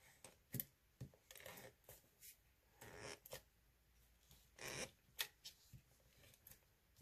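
Handheld adhesive tape runner drawn along the backs of cardstock pieces: three short, faint strokes, with light clicks and taps of paper in between.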